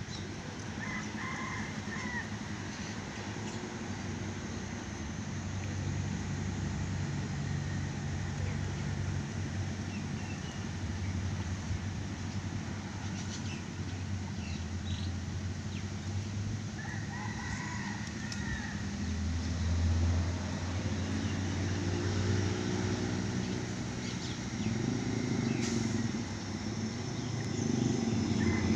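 A rooster crowing three times, near the start, around the middle and at the end, over the steady hum of an engine that grows louder in the second half.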